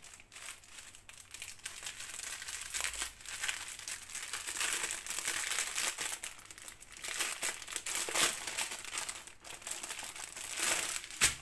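Clear plastic bag crinkling and crackling as it is handled and opened by hand, with the strip of packeted diamond-painting drills inside, in an irregular run of small crackles. A single sharp knock comes near the end.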